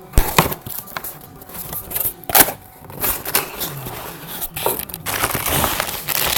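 Packing material and parts being handled: crinkling and rustling with sharp clicks and knocks, the strongest knocks just after the start and about two and a half seconds in, and steadier rustling near the end.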